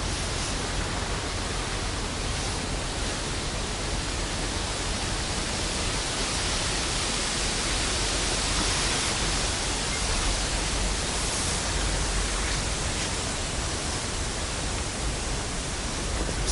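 Steady wind noise on the microphone: a dense, even hiss with a low rumble beneath it.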